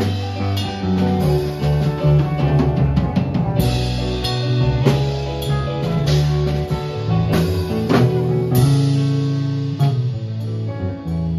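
Small rock band playing live with no singing: drum kit, electric guitars and bass, with a keyboard player also at work.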